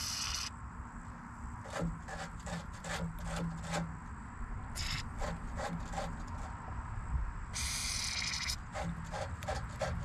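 Aerosol can of Liquid Wrench penetrating oil hissing in short sprays into a tractor loader's hydraulic quick-coupler sockets: once briefly at the start, a short puff about halfway, and a longer spray of about a second near the end. Between sprays there are small clicks and rubbing of hands on the metal fittings.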